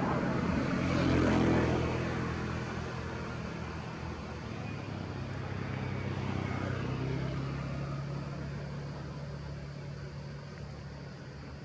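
A motor engine droning steadily. It is loudest about a second and a half in, then slowly fades away.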